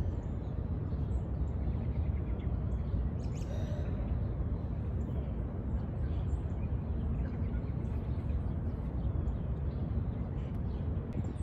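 Steady low rumble of outdoor noise, with faint, scattered bird chirps over it.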